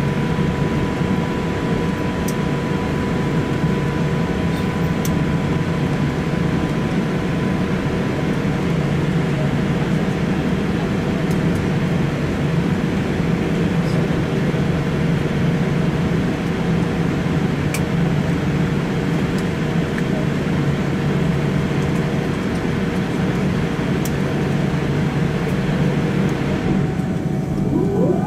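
Cabin noise inside an All Nippon Airways Boeing 787-8 taxiing after landing: a steady low rumble and hiss with two faint steady tones. Near the end the hiss drops away and a rising tone settles into a new steady whine.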